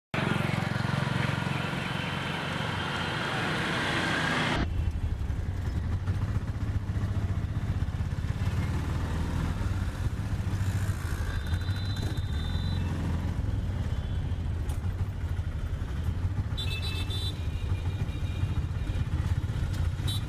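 Street traffic with a passing motorcycle for the first four or five seconds. After an abrupt cut, a small vehicle's engine drones steadily at a low pitch, heard from inside its cabin, with a few faint high chirps around the middle and later.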